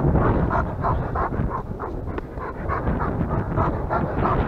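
A dog panting quickly and steadily, about four breaths a second, close to the microphone, over a low rumble.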